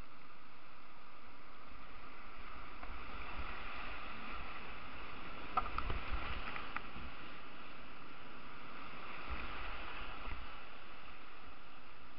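Rushing whitewater of a rocky river rapid, heard from a kayak running it, with the splash of the boat and paddle. A cluster of splashes and sharp knocks comes about halfway through, with low rumbling swells before and after it.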